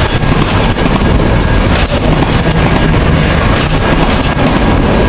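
Freight train of auto rack cars rolling past at close range: a loud, steady rumble of steel wheels on the rails, with sharp clacks every half second to a second.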